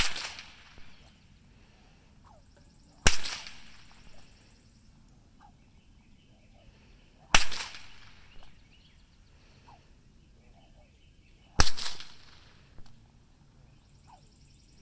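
A swung rope slapping down with a loud crack four times, about every four seconds, each time followed by a smaller slap under a second later.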